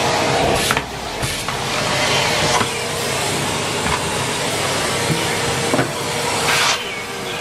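Numatic Henry Pet cylinder vacuum cleaner running with a steady hiss of suction and a motor whine, the airflow changing briefly about a second in and near the end as the nozzle moves. A few light knocks of the nozzle.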